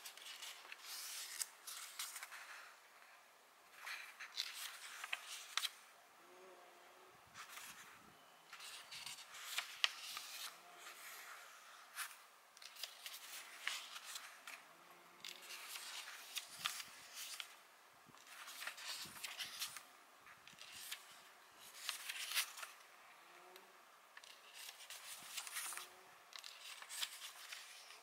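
Thin paper pages of a printed timetable booklet being turned by hand one after another: a series of soft paper rustles and flicks, every second or two with short pauses between.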